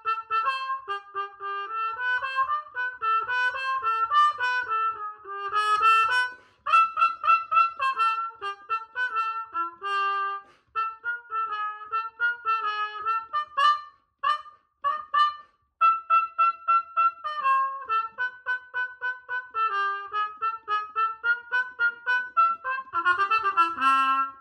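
Solo cornet with a mute in the bell, playing a lively tune in short, detached notes with a few brief breaks.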